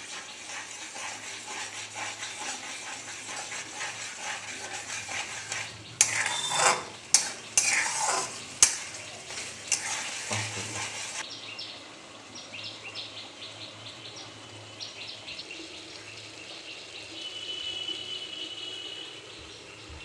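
Onion masala sizzling in oil in a black kadai while a steel spatula stirs it. From about six seconds in, loud clinks and scrapes of the spatula against the pan stand out for several seconds. After that the sizzle drops away, leaving faint ticks and a short high chirp.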